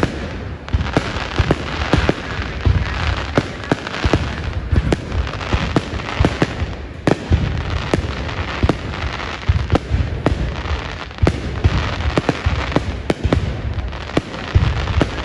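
Aerial fireworks display going off: a dense, irregular run of bangs and deep booms, several a second, over continuous crackling.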